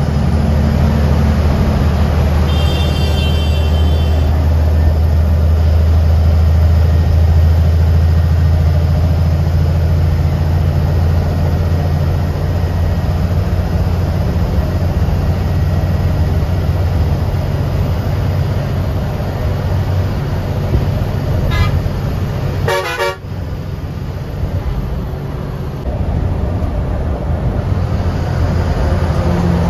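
Diesel bus engine droning steadily in the cabin at highway speed, with a short horn tone about two and a half seconds in and a couple of quick horn toots a little past two-thirds of the way through.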